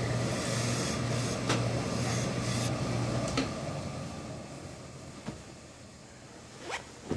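Suit trouser fabric rustling as it is spread and smoothed flat by hand on a cutting table. A steady low hum sits under it and fades about three seconds in. A few light taps and clicks follow as the handling quietens.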